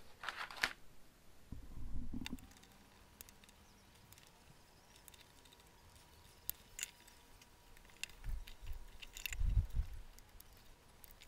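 Faint handling noises of a printed circuit board being set into a plastic board holder and its pin connector fingered: scattered light clicks and taps, with dull bumps about two seconds in and again around nine seconds in.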